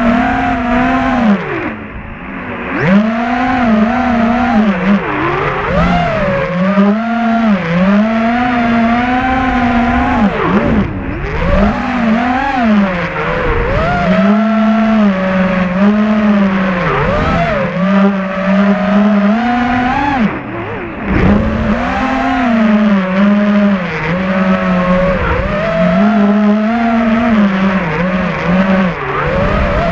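FPV racing quadcopter's motors and propellers whining, picked up by the onboard camera. The pitch rises and falls constantly with the throttle, and drops low three times, about two, eleven and twenty seconds in, as the throttle is chopped.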